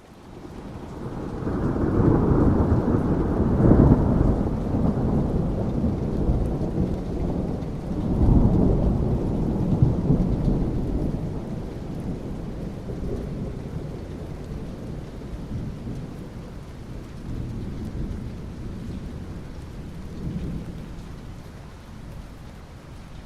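Rolling thunder over steady rain. A deep rumble swells in the first few seconds and surges again about eight seconds in, then slowly dies away, leaving the hiss of rain.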